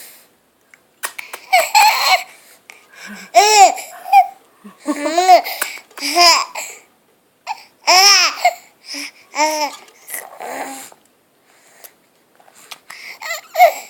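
A baby's high-pitched squeaking squeals, a string of about eight short ones a second or so apart, each rising and then falling in pitch.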